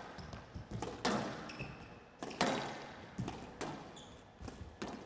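Squash rally: the ball cracks off rackets and walls in four loud strikes about a second and a quarter apart, with lighter knocks between them and brief high squeaks of court shoes.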